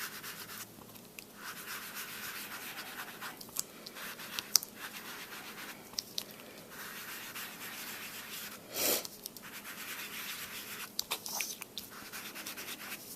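Ink blending tool rubbing Distress ink onto cardstock in repeated scratchy strokes, with a few short pauses and light taps, as the colour is worked around the edges of the card.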